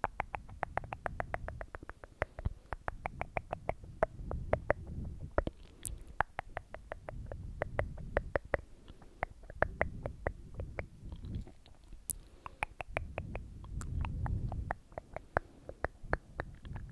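Mouth sounds right at the microphone: rapid wet clicking and smacking, several clicks a second, over an uneven low rumble.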